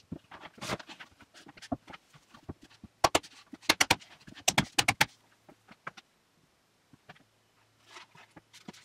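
Spruce boards of a dowel-jointed shelf knocking and tapping together as the pieces are handled and fitted, with a quick run of loud, sharp wooden knocks about three to five seconds in and scattered lighter taps before and after.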